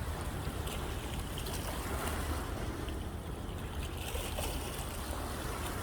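Sea waves washing in, a steady rushing with a deep rumble underneath.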